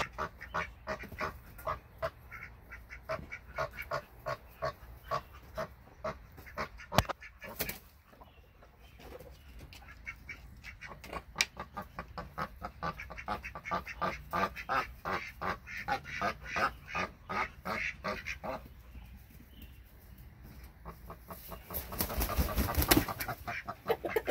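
Chickens clucking in fast runs of short repeated calls, about three or four a second, with a lull in the middle. A louder rustling burst comes near the end.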